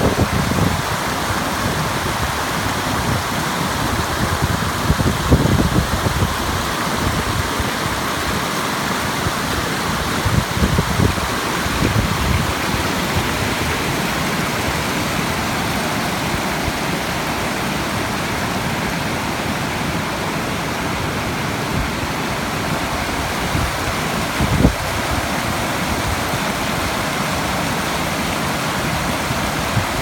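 Steady rushing of a fast mountain stream tumbling over boulders in whitewater cascades. A few low thumps cut in around five and eleven seconds in, and once more about twenty-five seconds in.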